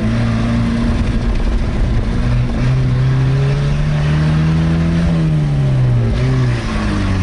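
Chevrolet Opala's four-cylinder engine pulling under acceleration, heard from inside the cabin. The engine note climbs steadily for a few seconds, then falls away, with a brief break in the sound near the end.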